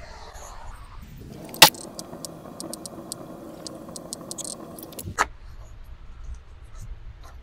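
Motorized target carrier on an indoor range running a paper target back along its track: a steady motor hum with rapid light ticks for about four seconds. A sharp knock comes just after it starts, and another as it stops.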